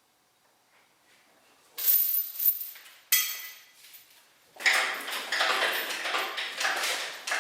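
Metal parts clinking and rattling, with a sharp ringing clang about three seconds in and a longer stretch of dense clatter in the second half.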